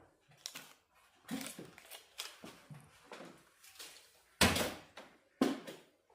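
A series of knocks and clicks from hard parts and tools being handled and set down on a work surface, with two louder knocks about four and a half and five and a half seconds in.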